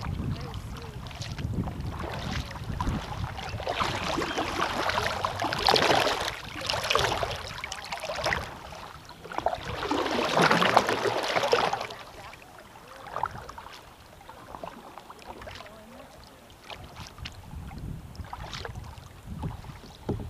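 Kayak paddle blade pulled through river water close to the hull, with two long surges of rushing, splashing water about four and ten seconds in. Then softer drips and lapping as the blade comes out.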